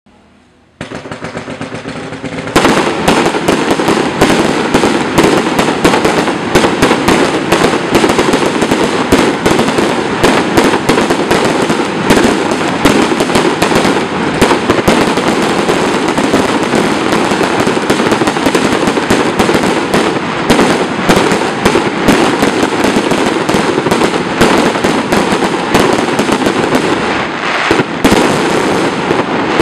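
A 256-shot 20 mm salute firework cake (a 'tommy gun') firing. After a quieter couple of seconds, a rapid, unbroken stream of loud bangs starts about two and a half seconds in and keeps up without a pause.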